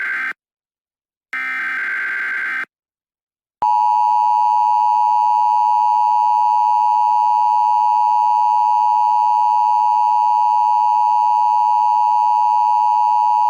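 Emergency Alert System alert signal: the buzzy SAME digital header data bursts (one ending about a third of a second in, another about a second later lasting over a second), then after a short gap a loud, steady attention tone for about ten seconds that cuts off abruptly. It announces that an emergency message follows.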